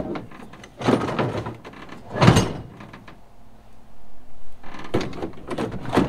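Stihl chainsaws being set down and shifted in a pickup truck bed: a series of hard knocks and clunks, the loudest about two seconds in, with a quick cluster of smaller knocks near the end.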